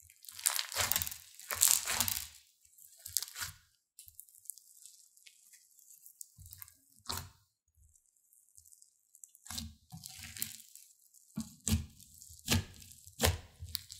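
Thick slime packed with small foam beads being squeezed and stretched by hand: sticky squishing and crackling, in several bursts with short pauses and a few sharp pops.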